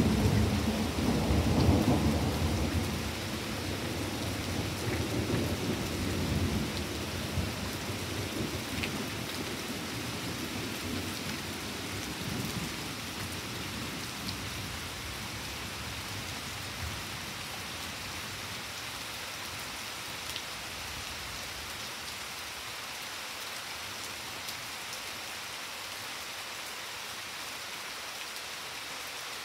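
A roll of thunder, loudest in the first few seconds and rumbling away over about ten seconds, over steady rain that goes on alone afterwards.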